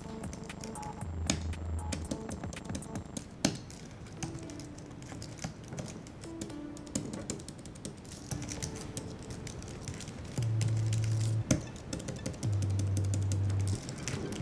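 Typing on a slim Apple computer keyboard, irregular quick key clicks, over background music whose loud, held bass notes come in about ten seconds in.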